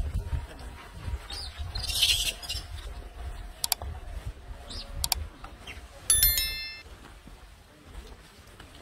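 Like-and-subscribe animation sound effects: a short hiss about two seconds in, two mouse clicks about a second and a half apart, then a bell ding that rings out briefly.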